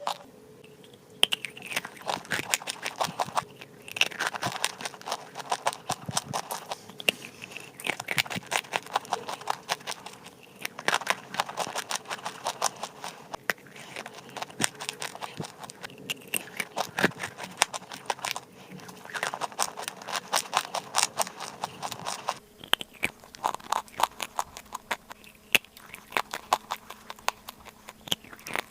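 Crunchy chalk clay being chewed close to the microphone: dense crackly crunches in bouts of a few seconds, with short pauses between them.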